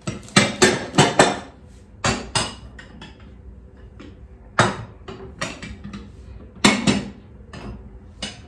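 Glass food containers and their lids knocking and clinking against each other and the kitchen countertop as they are handled and set down, in irregular clusters of sharp knocks.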